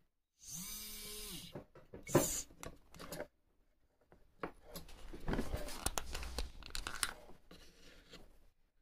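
Jeweller's micromotor handpiece whining up and back down, then its bit grinding and scraping against a small brass piece in uneven strokes that fade out near the end.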